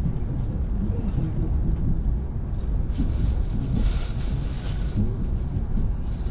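Steady low rumble of a suburban electric train running between stations, heard from inside the carriage, with a brief hiss about four seconds in.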